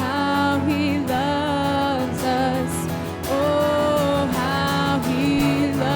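Live worship music: a singer holding long notes over a band playing underneath.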